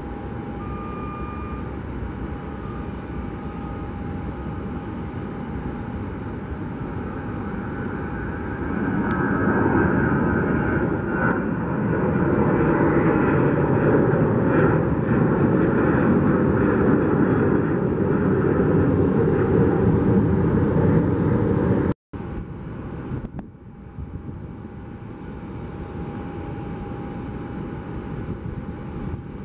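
Jet airliner engines at takeoff power: a Southwest Boeing 737's twin turbofans grow louder as it rolls and lifts off, with a steady whine over the rumble, and are loudest during the climb-out. Near the end, after a sudden break, a quieter jet rumble continues as the next airliner begins its takeoff.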